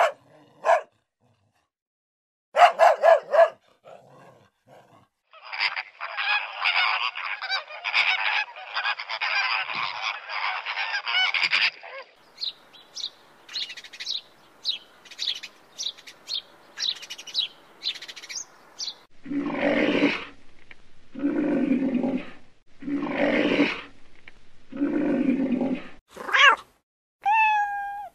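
A run of different animal calls from a compilation. Short calls in the first seconds give way to a dense stretch of overlapping calls, then a series of short chaffinch chirps and four long, low calls, each about a second. Near the end comes the start of a cat's meowing.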